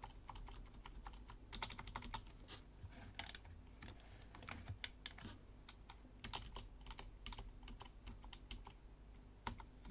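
Faint, irregular clicking of computer keyboard keys, many separate presses, over a low steady hum.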